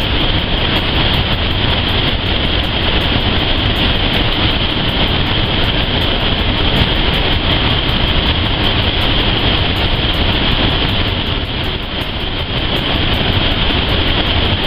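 Steady, loud rushing noise of a commercial kitchen range, with a low rumble, as steamed barbecue pork buns sear in hot oil in a steel skillet over a gas burner.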